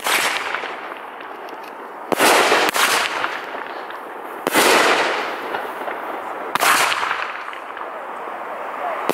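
Multi-tube consumer firework cake firing aerial shots: about four loud bangs a second or two apart, each trailing off slowly.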